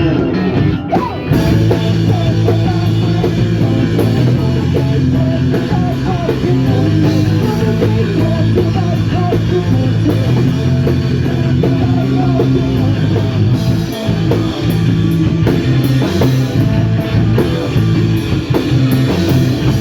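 Live punk rock band playing loud and steady: distorted electric guitar, bass and drum kit, with singing.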